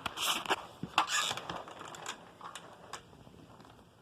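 Handling noises: scattered clicks and knocks with two short scraping rustles in the first second and a half, then quieter. No vacuum motor is running.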